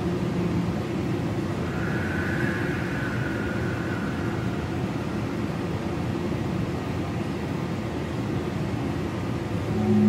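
Underwater recording of humpback whales: a steady deep rumble and hiss, with one faint, high, drawn-out call starting about two seconds in and fading out by about four seconds.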